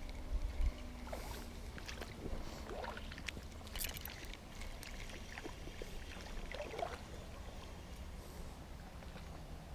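Water splashing and sloshing in small irregular bursts, with scattered clicks, over a low wind rumble on the microphone.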